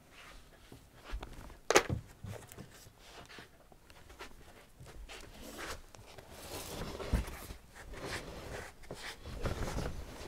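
Clothes rustling and feet shuffling as several people bow and shift about on the spot, with one sharp knock a little under two seconds in.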